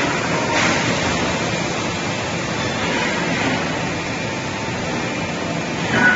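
Steady machinery noise from a keg-welding production line: an even hiss with faint steady tones, with brief louder noises about half a second in and near the end.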